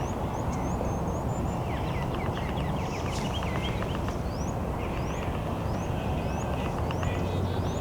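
Several wild birds calling and chirping at once, including a run of short, high, rising chirps repeated every second or so, over a steady low rushing background noise.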